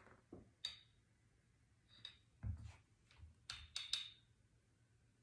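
Faint scattered clicks and light glass clinks as tall glass-jar candles are handled and lit with a butane stick lighter, with a quick cluster of clinks late on and a soft knock on the table about halfway through.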